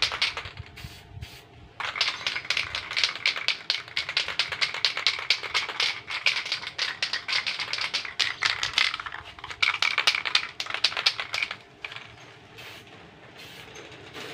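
Aerosol spray-paint can being shaken, its mixing ball clacking in a fast rattle in several bouts with short pauses. The rattling stops about two seconds before the end.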